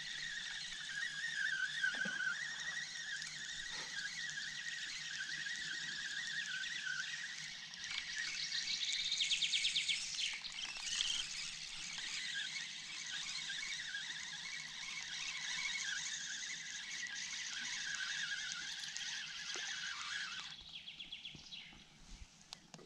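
Dense chorus of songbirds, several singing at once, with a rapid trill about nine seconds in. It becomes much quieter for the last two seconds.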